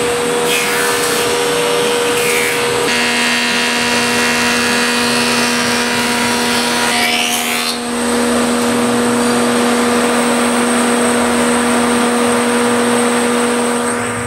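Powermatic 180 thickness planer running loud and steady as boards are fed through and planed. The tone shifts about three seconds in, and there is a short dip around eight seconds in.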